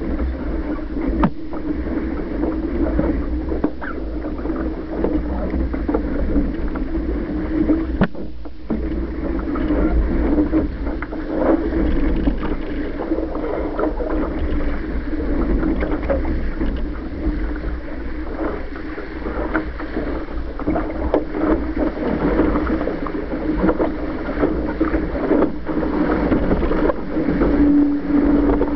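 Water rushing and splashing along the hull of a Laser dinghy sailing fast, with wind buffeting the microphone. A steady low hum runs underneath, and frequent short slaps of spray break through.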